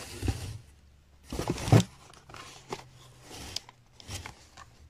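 Plastic packaging bags rustling and crinkling in short bursts as packed items are handled, with a few light knocks and a louder knock a little under two seconds in.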